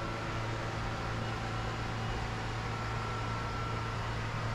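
Steady low mechanical hum under an even hiss, with a faint high steady tone; nothing starts or stops.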